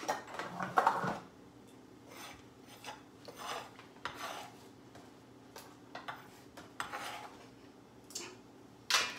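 Kitchen prep handling noises: dishes and a foil pan clattering at the start, then a series of short scraping and rubbing strokes of a utensil, and a sharp knock near the end.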